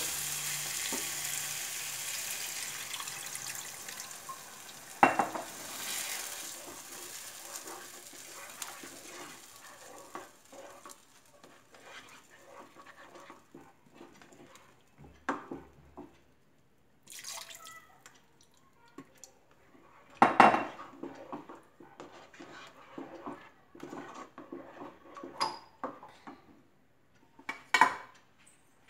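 Water poured into a hot kadhai of masala and potatoes hisses and sizzles, the hiss dying away over about ten seconds. After that, a ladle knocks and scrapes against the pan as the gravy is stirred, with a few louder clinks.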